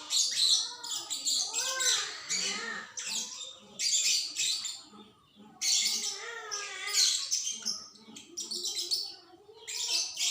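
Young songbird, about two and a half months old, singing a long continuous run of rapid high chirps and twitters.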